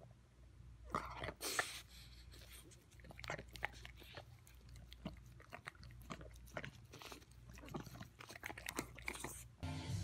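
Shar-Pei puppy chewing, a run of irregular small crunching clicks.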